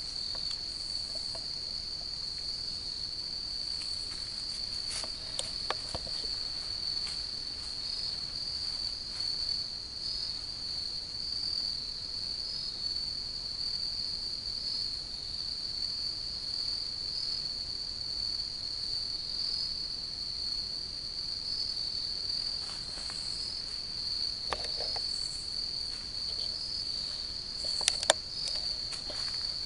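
Steady, unbroken high-pitched insect trill, an evening chorus of insects in the woods. A few short sharp clicks cut in about five seconds in and again near the end, where a pair of them is the loudest sound.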